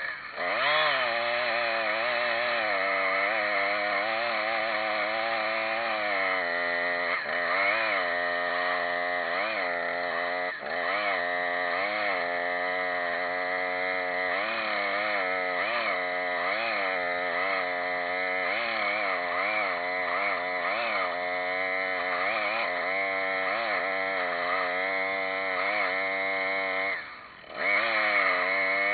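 Chainsaw running at high revs while cutting sweet gum wood, its pitch repeatedly dipping and recovering as the chain bites. It drops out briefly for about a second near the end, then revs up again.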